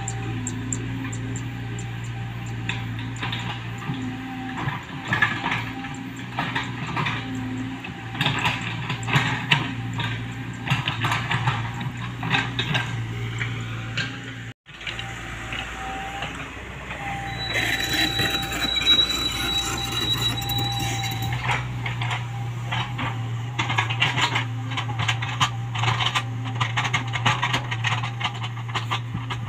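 Komatsu PC75UU mini excavator working soil: its diesel engine runs with a steady hum under frequent clanks and scrapes from the bucket and arm. The sound cuts out for an instant about halfway. After that the engine hum is missing for a few seconds, then comes back with the clanking.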